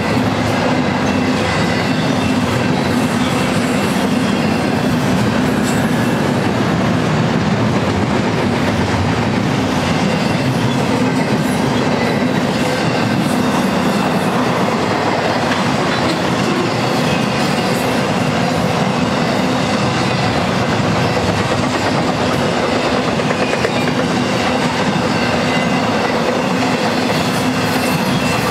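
Long intermodal freight train rolling past: the steady noise of steel wheels on rail from double-stack container well cars, then flatcars carrying truck trailers.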